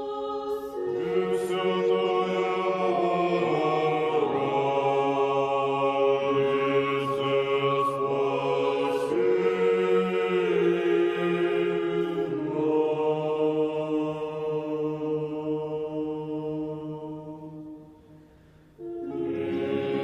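Background music of a choir singing slow chant in long held chords. It fades away near the end, then a new chord begins suddenly.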